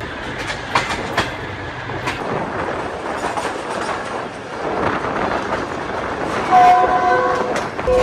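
Passenger train running, its wheels clacking over the rails, with the train's horn sounding near the end in a steady multi-note blast.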